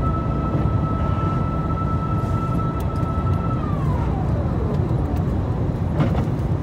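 Airbus A350 cabin noise on approach, a steady low rumble. A steady high whine slides down in pitch over about a second and a half midway through, and a brief click follows near the end.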